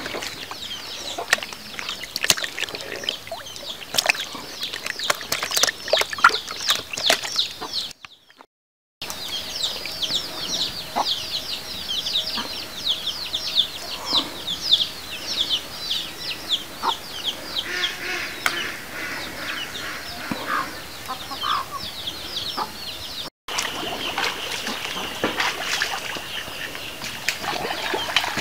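Many birds chirping at once, a dense run of short, high, falling chirps overlapping one another. The sound cuts out abruptly twice, about eight seconds in and again near the end.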